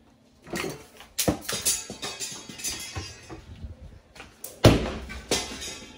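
A string of knocks and thumps, with the loudest, heaviest thud about three-quarters of the way through.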